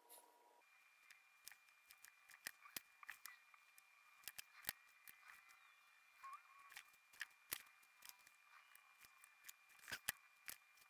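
Near silence broken by faint, irregular small clicks and taps of a soldering iron and fingers working on a small LED circuit board. A faint steady high tone runs underneath.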